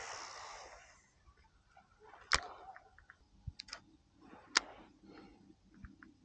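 A short rush of noise, then sharp clicks and small knocks from a baitcasting rod and reel being handled aboard a kayak: two loud clicks a little over two seconds apart, with fainter ticks between and after.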